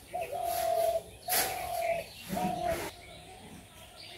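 A bird calling: three held, even-pitched notes about a second apart, then quieter near the end.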